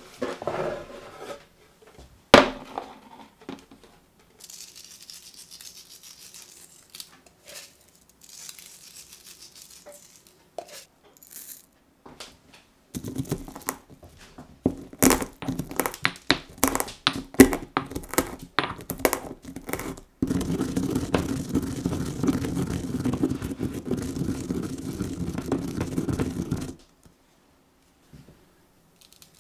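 Black peppercorns crushed in a stone mortar with a pestle: a quick run of cracks and knocks, then a steady grinding for about six seconds. Earlier, a knock as a wooden chopping board is set down.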